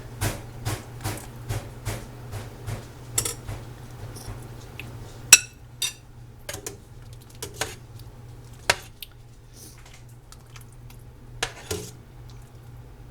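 Metal utensils clinking against pots and dishes: a quick run of regular knocks for about four seconds, then a few scattered sharp clinks, over a low steady hum.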